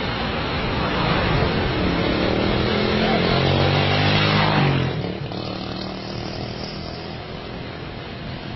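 Street traffic with a motor vehicle's engine revving, its pitch rising over a few seconds and then cutting off suddenly about halfway through; quieter traffic noise continues after.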